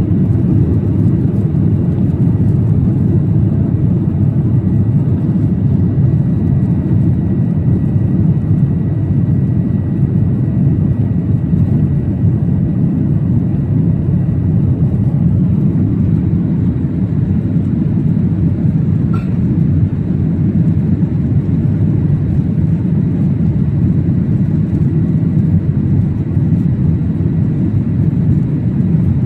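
Boeing 737-800 cabin noise: a steady, loud low rumble of engines and airflow, with a faint high steady tone and one faint brief ping a little past halfway.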